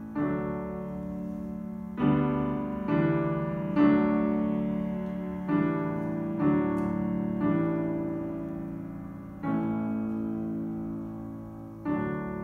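Grand piano playing slow chords alone, about nine of them a second or two apart. Each chord is struck and left to ring and die away.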